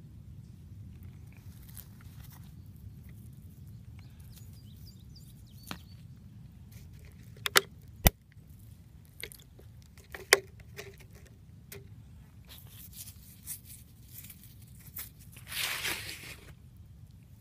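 Stone and gravel handling over a low steady rumble: a few sharp clicks around the middle, then a brief crunching scrape near the end as the agate is lifted out of the gravel.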